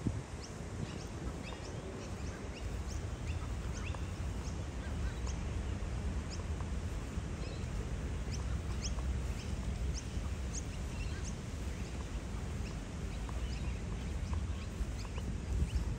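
Thin high peeping from a brood of young Australian wood ducks, short calls repeated several times a second, over a low rumble.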